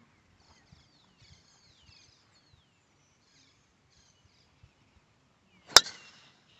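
Faint bird chirps, then one sharp crack of a golf club striking the ball near the end, with a brief ring after.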